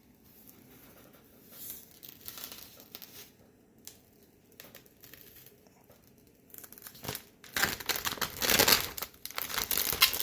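Protective plastic film being peeled off, with irregular crinkling and tearing. It is faint and patchy at first and becomes much louder and denser about three-quarters of the way through.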